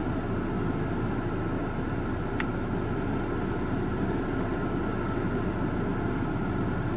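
Steady low rumble of an idling vehicle engine, heard from inside a car, with one faint click about two and a half seconds in.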